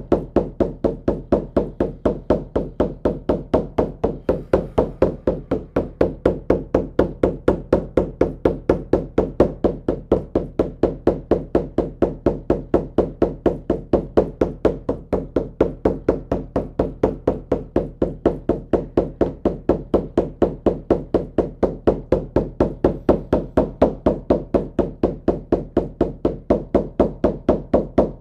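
Shamanic hand drum beaten at a steady, rapid, unvarying pace: the monotonous drumbeat used to carry a shamanic journey.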